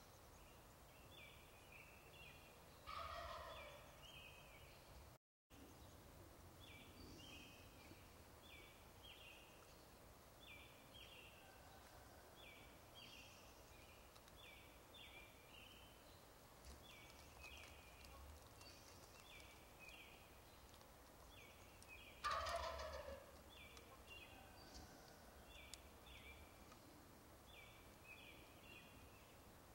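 Wild turkey gobbling twice, about 3 seconds in and again about 22 seconds in, each gobble a loud rattling call about a second long. Between the gobbles a faint, steady series of short high chirps repeats a few times a second.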